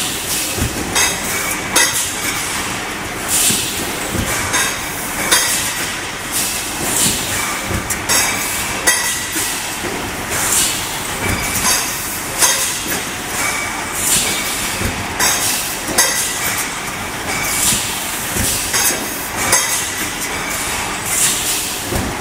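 HX-720 automatic plastic cup forming machine running: a steady mechanical clatter, with light plastic cups clinking over the conveyor rollers and a sharper clack recurring roughly every one to two seconds.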